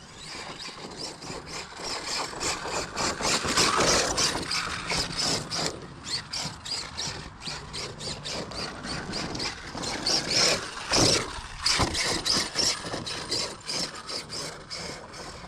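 Large 1/8-scale Arrma 6S electric RC car being driven hard on loose dirt: motor and drivetrain whine surging with the throttle, with tyres crunching and spraying dirt and many short knocks and clatters throughout.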